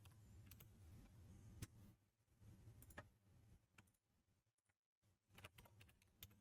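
Near silence with a few faint, scattered clicks from computer input, the clearest about a second and a half in and again at three seconds.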